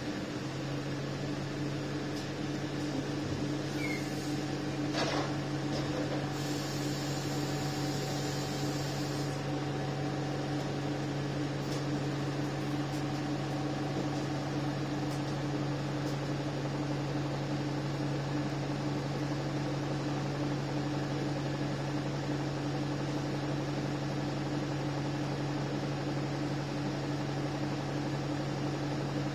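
Steady low hum inside the cabin of an Alexander Dennis Enviro 300 single-decker bus, its diesel engine idling while stopped. A brief hiss comes in about six seconds in and stops about three seconds later.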